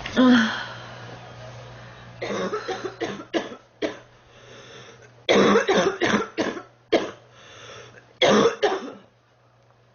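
A sick girl coughing: one loud cough at the start, then three bouts of rapid coughs in a row about two, five and eight seconds in.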